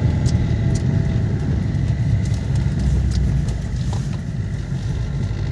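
Car engine and tyre noise heard from inside the cabin while driving: a steady low rumble that eases off slightly about four seconds in.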